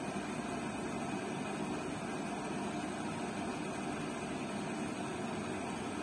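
Zanussi front-loading washing machine running mid-wash, a steady even mechanical noise with no knocks or changes.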